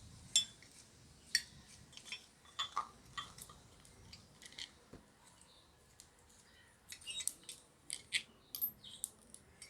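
Light metallic clicks and clinks, scattered and irregular, of small parts of a fog lamp's rusted beam adjuster being worked loose and taken apart. There is a sharper click about half a second in and a quick cluster of clicks near the end.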